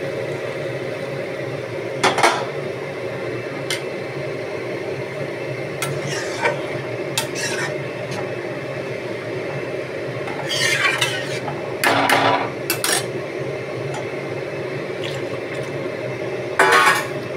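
A steel spoon stirring rice in hot water in a steel kadhai, with scattered clinks and scrapes of the spoon against the pan over a steady hum.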